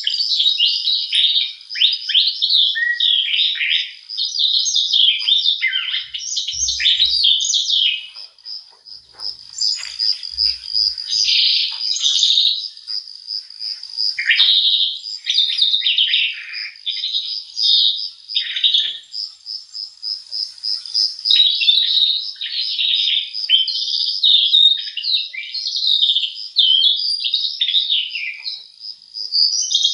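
Many small birds chirping and singing at once in a dense, overlapping chorus of short high calls and trills. A rapid, even pulsing high note runs under the calls through much of the middle.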